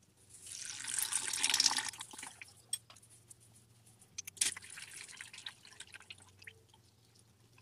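Used transmission oil running from the drain hole of a DSG (S-tronic) gearbox pan into a drain pan, splashing loudest from about half a second to two seconds in, then trickling. A few metallic clicks from a hex tool at the drain hole as the plastic drain tube is unscrewed, with the sharpest click about four and a half seconds in.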